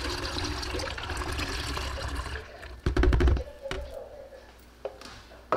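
Freshly made green juice poured from a juicer's plastic juice cup into a large plastic jug, a steady splashing pour for about two and a half seconds. About three seconds in comes a short, loud clatter as the cup is handled.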